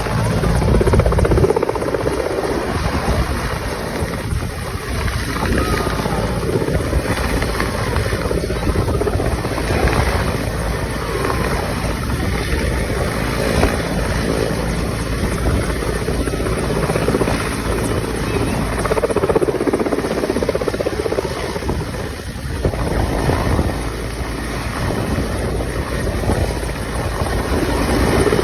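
Helicopter running, a steady loud rumble of rotor and engine.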